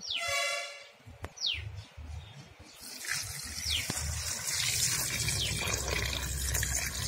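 Water poured from a small steel pot into a steel bowl of cut quail pieces, a steady splashing stream that starts about three seconds in. Before it, a short falling call and a few quick chirps, like a bird's.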